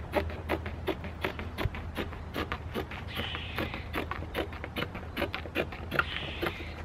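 Medical shears snipping through canvas cloth in quick, even cuts, about four snips a second.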